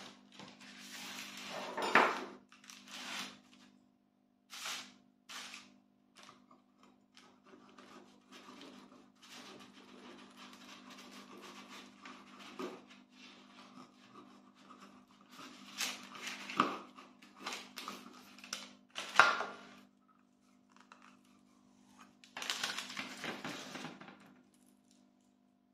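Handling of steel pastry tubes and cialdoni shells on a parchment-lined metal baking tray: a few sharp metallic clinks and knocks, with soft scraping and rustling as a knife blade trims the pastry edges.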